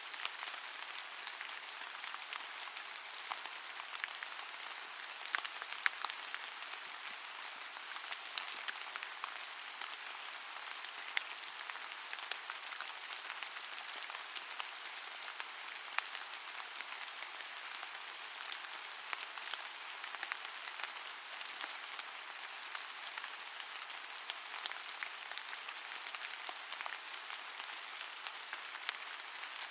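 Steady rain: an even patter with many scattered individual drop ticks.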